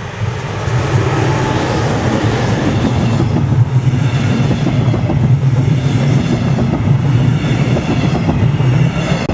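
Electric locomotive hauling a train of double-deck passenger coaches running past on the track: a loud, steady noise of the train and its wheels on the rails. It builds as the locomotive arrives about a second in and holds while the coaches roll by.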